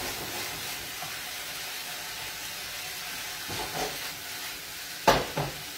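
Fettuccine and asparagus sizzling in a frying pan, a steady soft hiss. Near the end comes a sharp knock, followed by a lighter one.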